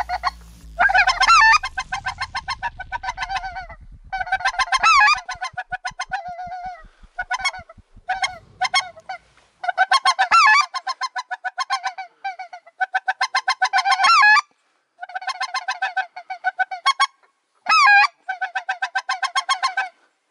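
Goose honking in quick runs of repeated calls, each run lasting a second or two with short breaks between.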